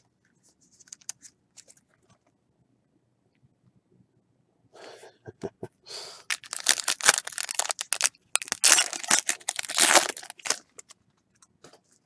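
Foil wrapper of a pack of baseball trading cards being torn open and crinkled: a few faint ticks at first, then about five seconds in a loud crackling, tearing run that lasts some six seconds and stops near the end.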